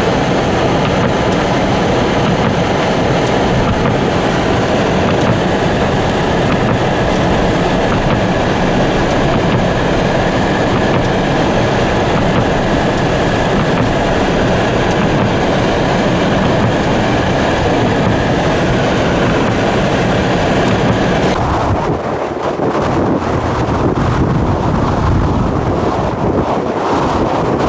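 Strong blizzard wind blasting and buffeting the microphone in a steady, loud rush of noise; about 21 seconds in the hiss thins out and a lower gusting rumble carries on.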